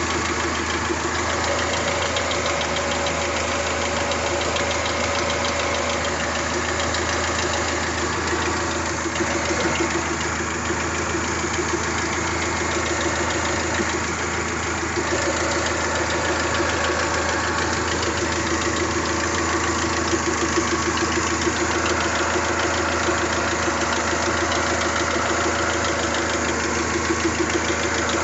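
Toyota 3S-GTE turbocharged four-cylinder engine idling steadily with a light, repetitive ticking rattle.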